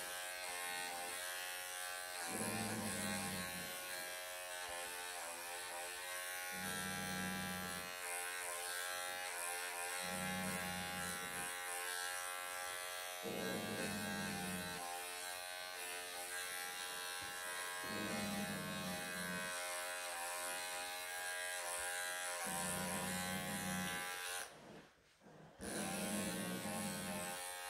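Wahl cordless pet clipper buzzing steadily as it shaves a Persian cat's long coat. A low growl from the cat comes about every four seconds. The clipper cuts out for about a second near the end, then starts again.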